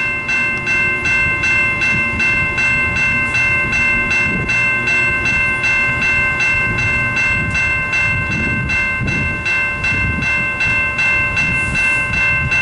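A bell ringing rapidly and evenly, about three strokes a second, over the low rumble of the Amtrak Wolverine's diesel locomotives idling at the platform.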